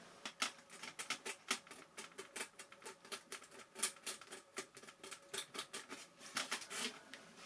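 Faint, irregular light scratching and clicking, several strokes a second, of a hobby blade scraping thick paint off a painted foam model wing so that glue can reach the foam.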